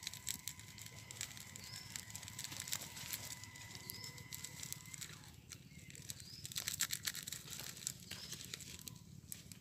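Small plastic instant-noodle seasoning sachet crinkling and rustling in the fingers as it is torn open and squeezed, a run of small crackly clicks that gets busier about halfway through.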